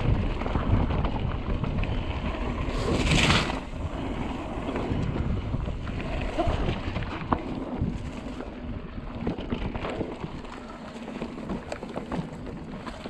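Wind rushing over an action camera's microphone as a Trek Remedy mountain bike rolls along a dirt trail, with frequent light rattles and clicks from the bike. A brief, sharper hiss comes about three seconds in.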